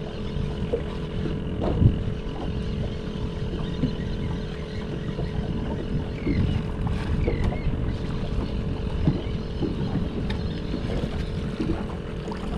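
Wind on the microphone and water lapping against a small boat's hull, over a steady hum, with a few small knocks.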